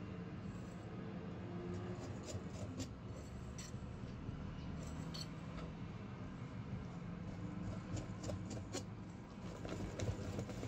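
Wire whisk stirring chocolate cake batter in a glass bowl: soft scraping with irregular light clinks of the wires against the glass, over a steady low hum.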